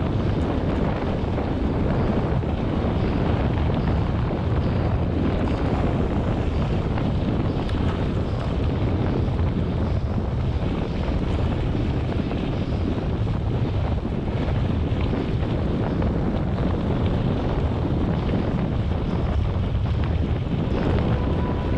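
Steady wind noise buffeting the microphone of a cyclist's camera while riding at speed, with rolling road noise underneath.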